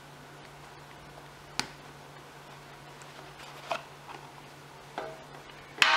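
Smartphone retail box and its packaging being handled and opened: four separate light clicks and knocks about a second or two apart, the loudest near the end, over a faint steady hum.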